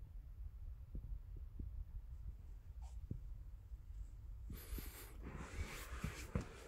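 Soft thumps and low rumble of a camera being handled, then, from about four and a half seconds in, the vinyl skin of a large inflatable pony toy rustling and squeaking as it rubs close against the camera.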